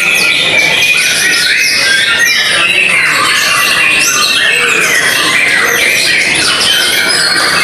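White-rumped shama singing loudly and without pause: a rapid, varied stream of whistles, sliding notes, chirps and harsh chatter. It is the hard-driven, aggressive song that bird-song keepers call a "fighter" bird.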